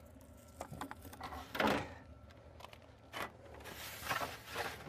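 Faint clatter and rustling of kitchenware being handled: a few light knocks, then about a second of rustling near the end.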